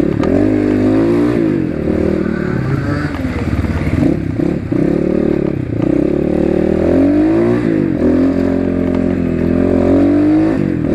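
Asian Beast 250 dirt bike with a loud exhaust being ridden, its engine note climbing and dropping several times as the throttle opens and closes.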